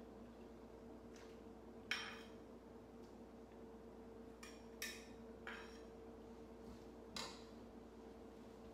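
A ladle clinking against a pot and a ceramic bowl as soup is served: a few sharp, briefly ringing knocks, the loudest about two seconds in and others around five and seven seconds, over a steady faint hum.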